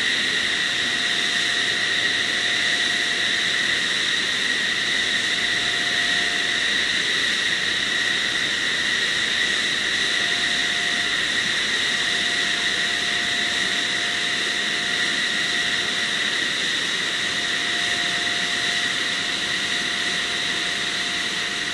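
Jet turbine running steadily on the Turkish National Combat Aircraft prototype: an even, high whine over a loud rushing hiss, with a fainter lower tone that comes and goes.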